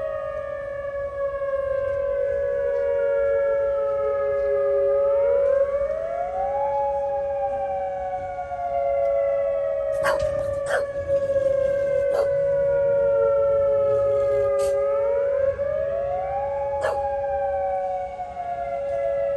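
Outdoor tornado warning siren sounding for its routine monthly test: a steady tone under a second tone that slowly falls over several seconds and then quickly rises again, twice. A few short sharp sounds break in about halfway through.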